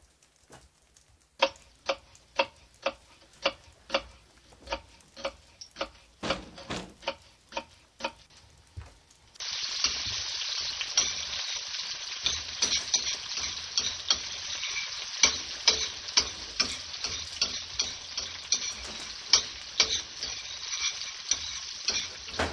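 Regular ticking, about two ticks a second. About nine seconds in, a loud crackling hiss with sharp pops through it starts suddenly and carries on.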